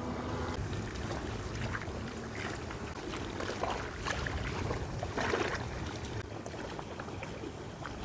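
Faint outdoor ambience: wind rumbling on the microphone, with a few soft rustles of plant stems and leaves being handled.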